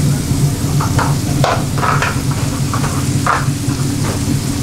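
Curry pans sizzling over high gas flames, with a steady low roar under them. Several short sizzles and clinks come as the chef works the pans and pours liquid into a pan of tomato sauce.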